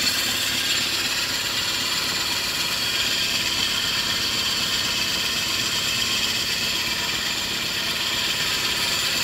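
Sewing machine's bobbin winder running, a steady, even whir as it winds thread onto a bobbin.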